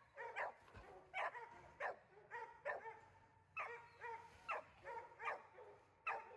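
A hunting dog barking over and over, faint, about once every second or less, in sharp pitched barks.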